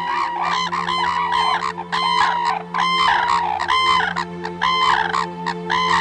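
Red-crowned cranes calling, loud trumpeting calls overlapping at about two a second, over a steady low hum.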